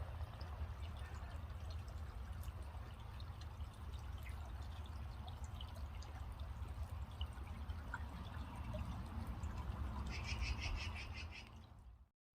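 Magpies calling in the background over a steady low rumble, with a fast rattling chatter near the end. The sound then fades out.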